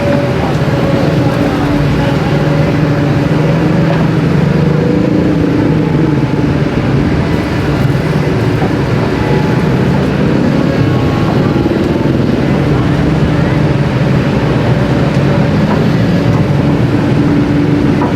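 A motor engine running steadily, its pitch shifting slowly up and down.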